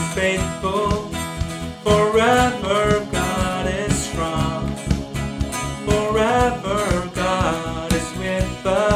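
A male voice singing a worship song over a full band accompaniment with a steady beat.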